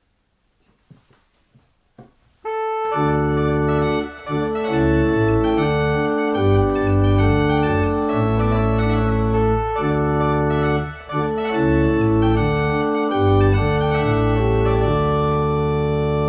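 Digital organ playing a solo melody on a loud reed stop over a quieter accompaniment in the left hand and pedals, with the Great to Pedal coupler drawn to strengthen the bass. After a soft click or two, the music begins about two and a half seconds in, in sustained chords, with short breaks between phrases.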